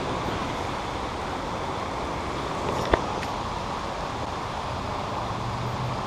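Steady rushing outdoor noise in a concrete creek culvert, with one sharp click about three seconds in.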